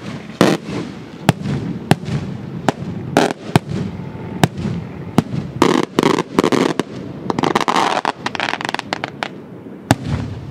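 Beraq fireworks shells bursting: a rapid series of sharp bangs, about one to two a second, with a denser crackling volley around seven to nine seconds in.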